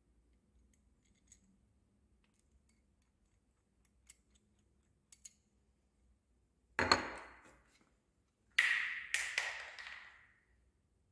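An industrial sewing machine hand wheel and a screwdriver being handled while the wheel is fitted: light clicks, then a loud knock past the middle and, near the end, a short clattering run of strikes that rings briefly.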